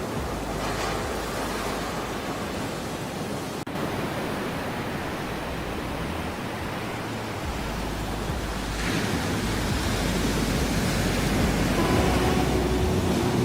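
Ocean surf: a steady rush of waves washing on a shore, swelling about a second in and building again from about nine seconds. Near the end, soft music with held tones begins to come in over the waves.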